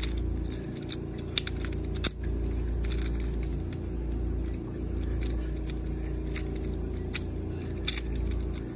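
Plastic infinity cube being flipped and folded in the hands, its small hinged blocks clicking and clacking at irregular moments, over a steady low hum.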